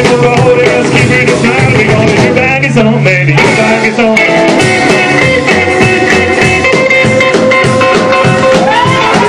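Live rockabilly band playing: electric guitar over a drum kit, with notes bent near the end.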